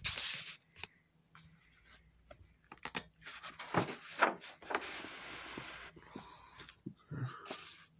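Soft paper rustling and scraping as a sketchbook's page is turned and the book is shifted, with a few light clicks.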